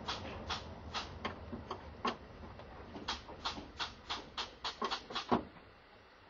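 Miniature railway carriage wheels clicking over the rail joints at low speed, a regular click about three times a second that stops about five and a half seconds in.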